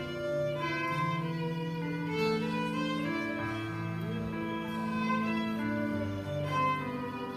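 Music of bowed strings, a violin leading, playing held notes over sustained chords that change every second or two.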